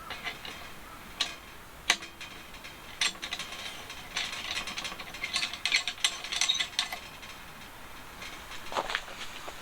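Small mechanical clicking and ratcheting: a few sharp separate clicks, then dense runs of rapid ticking in the middle.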